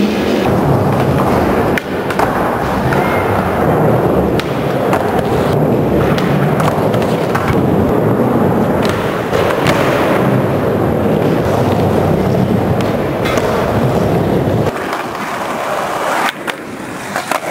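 Skateboard wheels rolling over skatepark ramps in a loud, steady rumble, with a sharp clack of the board now and then as it is popped or lands. Near the end the rumble drops and becomes lighter.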